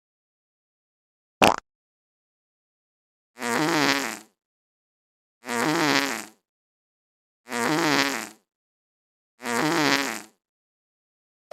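Fart sound effects: one short, sharp fart about a second and a half in, then the same longer, fluttering fart played four times, each about a second long and about two seconds apart.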